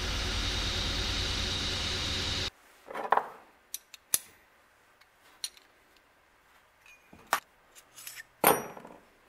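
Belt grinder running with a steel knife blade, held in a file guide, being ground against the belt; it cuts off abruptly about two and a half seconds in. Then a few knocks and metallic clinks as the blade and tools are handled on the workbench.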